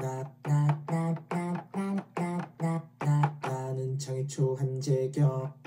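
A recorded voice clip played from a MIDI keyboard through a sampler: short sung-sounding notes of the same voice, one for each key, stepping up and down in pitch. The voice was recorded on C and is transposed across the keys. The notes come about two a second, then quicker from about three seconds in.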